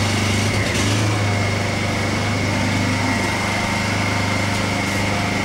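Honda EU20i inverter generator's small four-stroke engine running steadily off load with the eco throttle on: an even low hum with a faint steady high whine above it.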